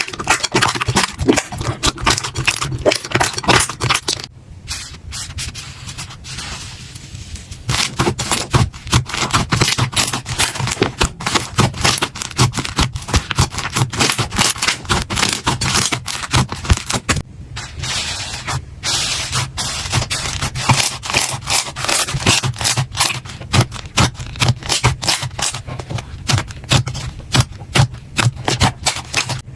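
Slime being squeezed and poked by hand, giving a dense run of crackling, popping clicks, with a quieter stretch about four to eight seconds in.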